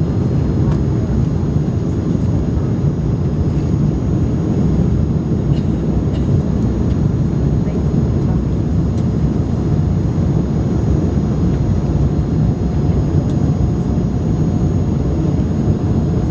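Steady drone of an Airbus A300 airliner's engines and airflow heard inside the passenger cabin, with a faint steady whine above it.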